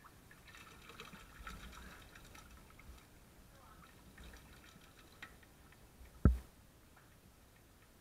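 Air bubbles from an aerator hose crackling and fizzing underwater in a tub of live blue swimming crabs, with scattered faint clicks. One sharp knock about six seconds in.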